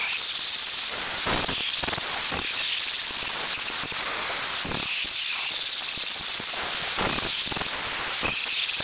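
Angle grinder grinding the edge of a forged steel knife blade: a steady hissing rasp, with brief louder scrapes a few times.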